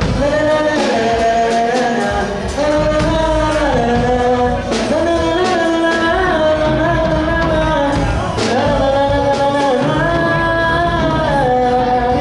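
A live band playing, with a sung or held melody line stepping between sustained notes over light percussion strokes.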